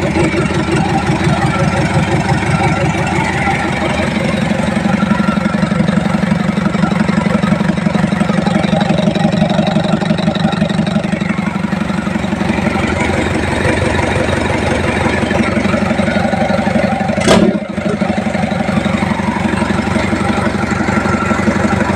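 PS 120 engine running steadily on test with an even rapid pulse, and a single sharp knock about seventeen seconds in.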